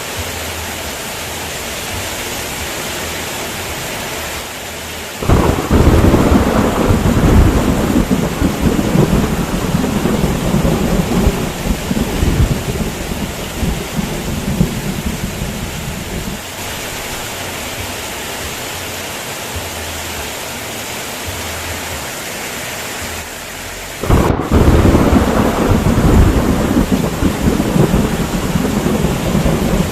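Steady heavy rain with two loud rolls of thunder, one starting suddenly about five seconds in and the other near the end, each rumbling on for several seconds.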